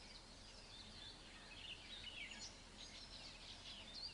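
Faint chorus of small birds chirping and twittering, many short calls overlapping, over a low background hiss.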